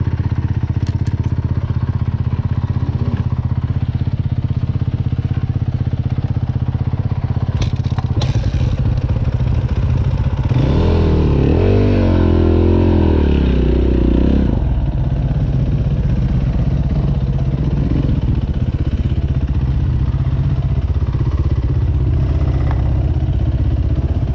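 KTM dirt bike engine running as the bike picks its way along a rough trail, revving up and down for a few seconds about halfway through. A couple of sharp knocks come about a third of the way in.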